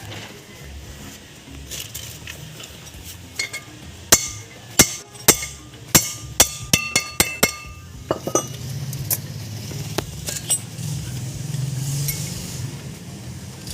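A hammer striking metal about a dozen times, a sharp ringing clink on each blow, mostly in a quick run in the middle of the stretch. It is the sound of a new wheel bearing being tapped into place in the hub of an Isuzu Trooper.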